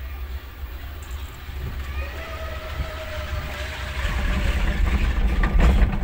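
Chairlift haul rope running through a tower's sheave wheels as the chair passes the tower: a whine sets in about two seconds in and falls slightly in pitch, then a clatter of rollers near the end, over a steady low wind rumble on the microphone.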